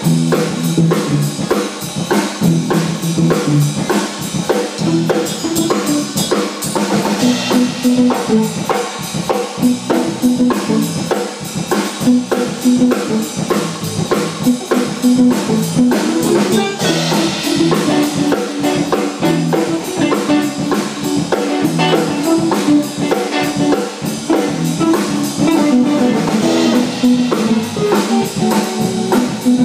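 Live band jamming: a drum kit keeping a steady beat under guitar, with cymbal crashes recurring every ten seconds or so.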